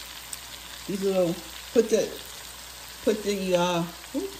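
Vegetables sizzling steadily in an enameled cast-iron Dutch oven on an electric hot plate.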